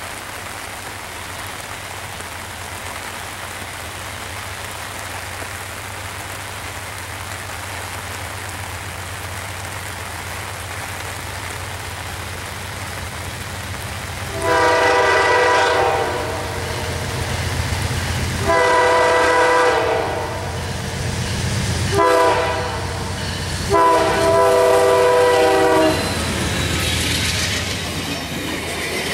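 Steady rain hiss, then an approaching Amtrak passenger train's multi-tone horn sounding long, long, short, long, the standard grade-crossing signal. The passenger cars pass near the end, with wheels clacking over the rail joints.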